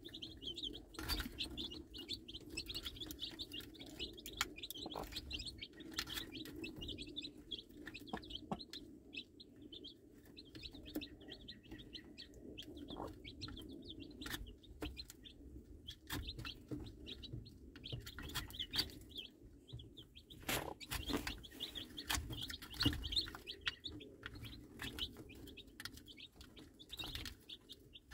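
Baby chicks peeping, many short high cheeps, busiest at the start and again near the end and sparser in the middle, while they and a broody hen peck at feed in a plastic chick feeder, with scattered sharp taps of beaks and low clucks from the hen.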